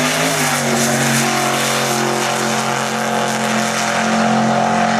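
Supercharged Holden Gemini wagon drag car's engine at full throttle as the car launches off the line and accelerates down the strip. Its note holds high and steady from about a second in.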